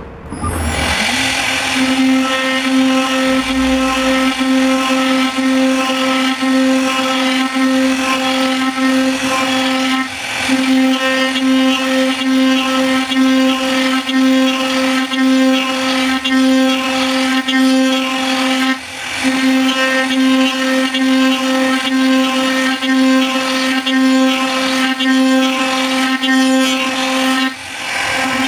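A power tool's electric motor running steadily at constant speed, a pitched hum that breaks off briefly three times.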